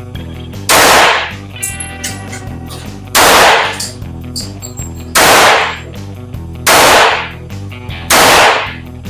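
Handgun fired five times, single shots about one and a half to two and a half seconds apart, each a loud crack with a short echoing tail, over background music.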